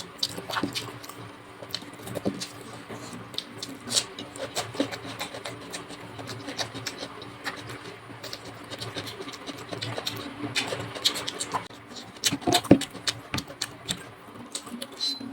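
Close-miked eating of chicken curry and rice: wet chewing and lip smacks as an irregular run of sharp clicks and smacks, with a faint steady hum underneath.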